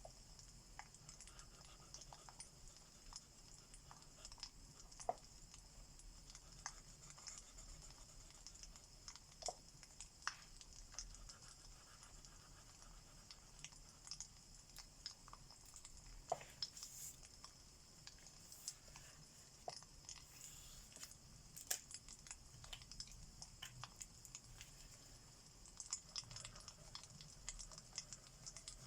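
Faint crackling of a wood fire: irregular small pops and snaps over a soft steady hiss.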